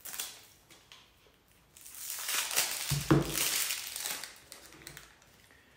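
Plastic shrink-wrap crinkling and tearing as it is stripped off a deck of cards, mostly from about two to four and a half seconds in, after a brief rustle at the start. A short low knock sounds about three seconds in.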